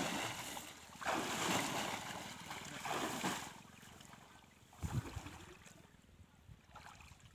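Water splashing and sloshing as people wade and churn shallow water while fishing with a hand net. Loud splashing in the first three or four seconds, a low thump about five seconds in, then quieter swishing.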